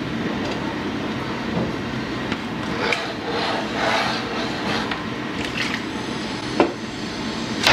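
Washing machine running steadily on its pre-wash cycle, with a few soft swishes partway through and two sharp knocks near the end.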